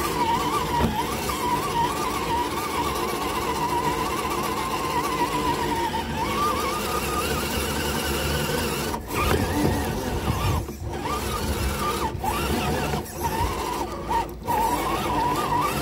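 RC crawler's electric motor and geartrain whining as the truck drives over mud and rocks, heard from a camera mounted on the crawler. The pitch wavers up and down with the throttle, and the sound cuts out briefly several times in the second half.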